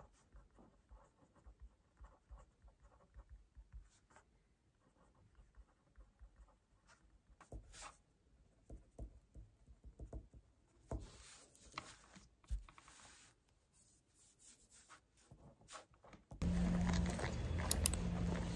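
Pen writing on paper: faint scratching strokes and small taps, with papers shifting now and then. Near the end a much louder steady hum with noise suddenly takes over.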